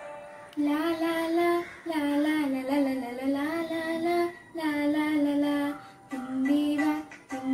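A girl singing a Malayalam song, in long held and gently bending notes with short breaks between phrases; her voice comes in about half a second in.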